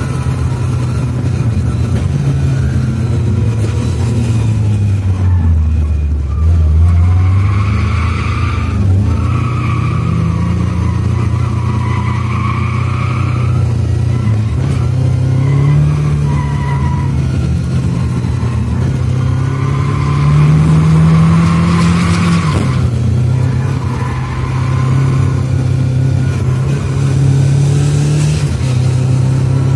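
Lada 2107 with a swapped-in 2-litre Fiat engine, driven hard on a race track: the engine revs rise and fall through the corners. The tyres squeal through several long stretches of cornering.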